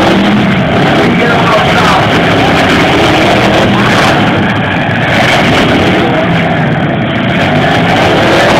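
Demolition derby cars' engines running and revving together across the arena, mixed with crowd voices.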